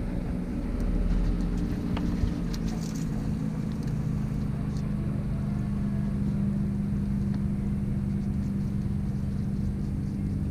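Boat motor running steadily with a low, even hum, and a few light clicks about two to three seconds in.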